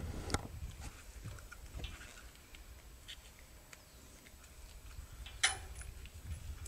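Small scattered clicks and taps of plastic camera cable connectors being handled and fitted together by hand, with one sharp, louder click about five and a half seconds in.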